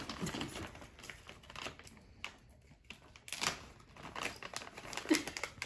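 Newfoundland dog chewing, with irregular clicks and crunches from her teeth and jaws.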